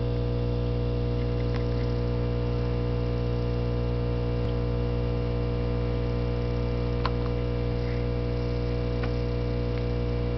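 Steady electrical hum made of several fixed tones that never change, with a few faint ticks.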